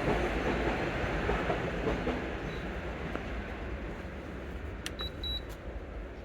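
LG 10,000 BTU window air conditioner running, a steady low hum and rushing whoosh that slowly fades, from a fan motor with worn bearings. A few light clicks and a short high double beep come about five seconds in.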